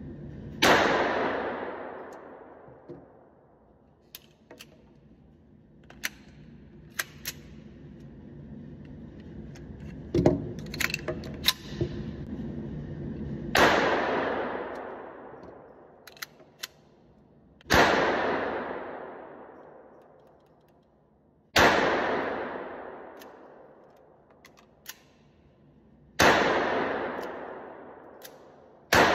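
Short-barrelled .22 LR AR-style pistol with no muzzle device firing single shots several seconds apart, about five in all, each with a long ringing echo off the indoor range. Between shots come small metallic clicks of the action being worked and the charging handle racked. The long gaps come from clearing failures to feed and eject and light primer strikes.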